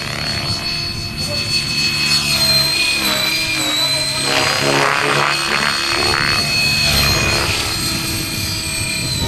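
Kasama Srimok radio-controlled model helicopter in flight: a steady high whine from its rotor and drive, wavering slightly in pitch and sweeping in tone through the middle as it manoeuvres.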